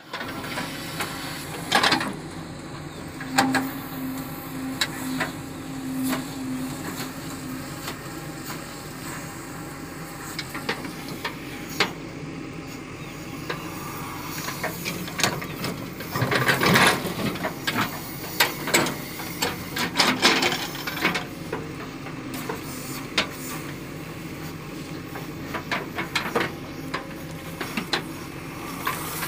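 JCB backhoe loader's diesel engine running under load as the backhoe digs and swings, with repeated clanks and knocks from the bucket and boom and soil thudding into a trailer. A short steady whine comes in early on, and the knocks are thickest a little past halfway.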